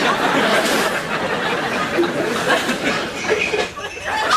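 A crowd laughing, with no words, dying down briefly near the end before it picks up again.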